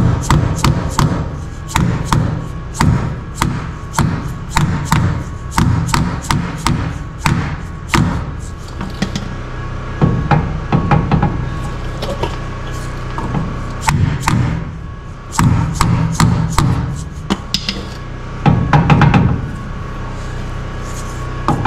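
Repeated hammer blows, roughly two a second with short pauses between runs, over steady background music.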